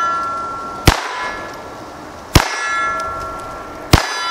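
Three .22 pistol shots about a second and a half apart, each hit followed by the clear ringing of a steel target.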